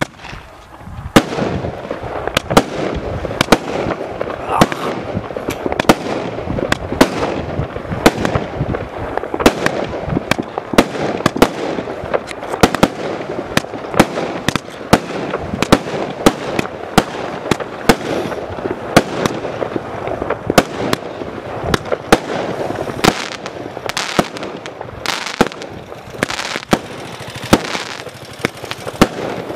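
Primed Pyrotechnics Casino 1.3G barrage cake firing. It starts abruptly from silence, then runs as a fast string of shots launching and bursting, with sharp bangs about once or twice a second over a continuous dense crackle and hiss.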